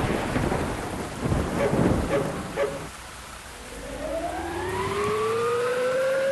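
A low noisy rush with a few knocks, then about halfway through a siren-like howl that rises steadily in pitch for about three seconds.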